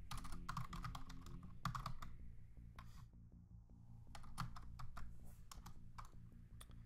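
Typing on a computer keyboard: quick runs of keystroke clicks, a pause of about a second near the middle, then another run of keystrokes. A faint steady low hum sits underneath.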